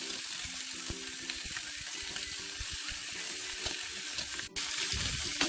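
Chicken drumsticks pan-frying in hot oil: a steady sizzle with scattered small crackles. About four and a half seconds in the sound briefly drops, then carries on a little louder.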